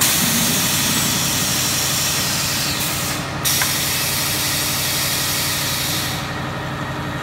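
Palletizing line machinery running with a steady hum, over which a loud hiss of compressed air starts abruptly, breaks off briefly about three seconds in, and stops about six seconds in.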